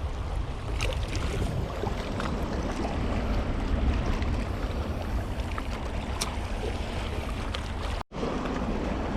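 Steady rushing of water at a lake spillway mixed with wind on the microphone, with a few faint clicks. The sound drops out for a moment about eight seconds in.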